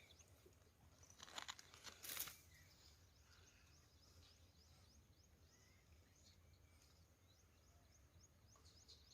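Near silence: faint outdoor ambience with a steady series of thin, high chirps, and two brief rustles about a second and two seconds in.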